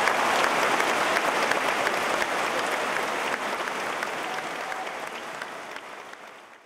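Large concert-hall audience applauding, a dense steady clatter of many hands that fades out gradually over the last few seconds.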